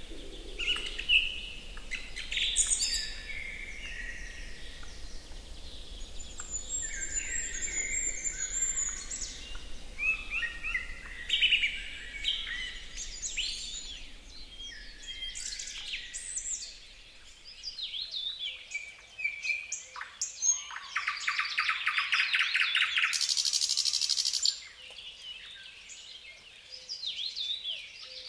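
Several wild songbirds singing and calling at once, with overlapping whistled phrases and chirps. About two-thirds of the way through, one loud, very fast trill runs for about four seconds.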